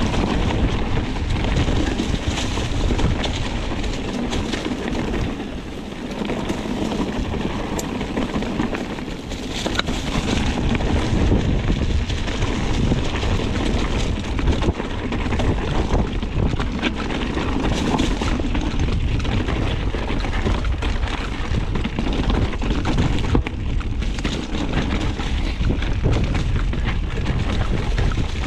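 Wind buffeting the microphone of a camera carried on a mountain bike being ridden fast down a rough trail, a steady loud rumble with frequent small knocks and rattles from the bike and tyres on the ground.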